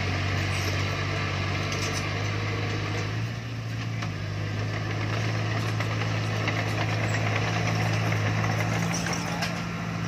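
Diesel engine of a heavy construction machine running steadily, its engine note shifting slightly about three seconds in and again near the end.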